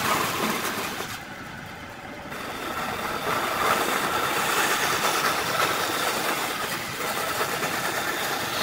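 Bandsaw running and cutting into a round of end-grain wood. The cutting noise eases off about a second in and builds again a couple of seconds later as the blade bites back into the wood.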